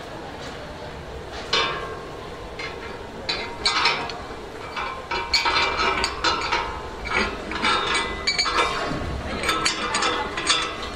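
Steel M15 shackle clinking and knocking against a line-array speaker's steel flying frame as it is fitted and its pin worked in by hand: irregular metal clinks with brief ringing, starting about one and a half seconds in.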